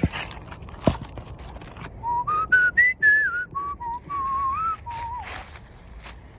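A person whistling a short tune of clear notes that step up in pitch and then drift back down, after two sharp knocks near the start.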